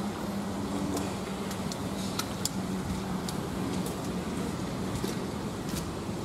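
A steady low mechanical hum over a constant rumbling background noise, with a few faint ticks scattered through it.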